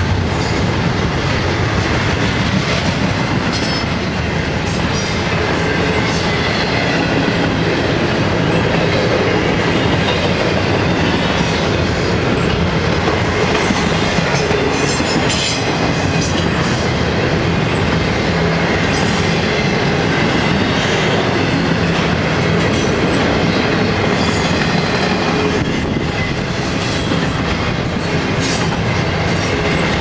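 Double-stack intermodal freight cars rolling past at speed: a steady loud rumble of steel wheels on rail, with scattered sharp clicks.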